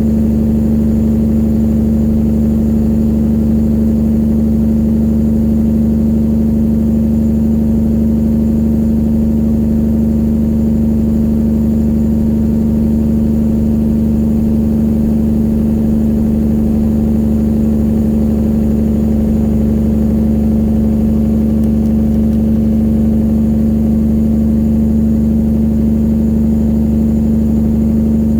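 Straight-piped diesel engine of a 1999 Peterbilt 379 semi truck running at a steady speed: a loud, even drone that holds one pitch throughout.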